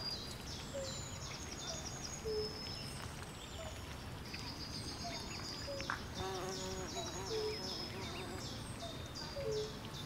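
Swamp chorus of birds and insects: many high chirps and short falling notes overlapping, with short lower calls repeating about once a second, over a steady low background hum.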